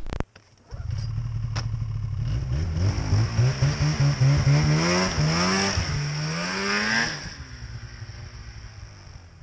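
Polaris Pro RMK snowmobile's two-stroke engine revving as the sled pulls out through deep snow, the pitch climbing in several rising pulls. It drops and fades away over the last couple of seconds as the sled rides off.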